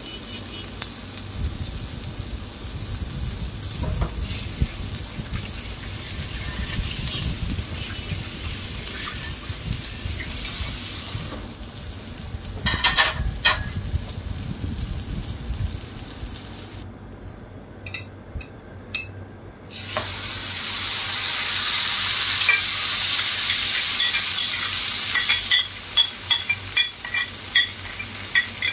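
Eggplant omelette frying in oil in a nonstick wok, with a steady sizzle. Past the middle it drops away briefly, then comes back louder as egg mixture is spooned onto the hot oil. A run of sharp clicks comes near the end.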